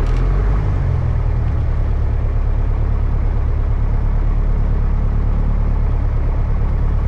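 Piper Cherokee 140's four-cylinder piston engine and propeller running at a low, steady idle.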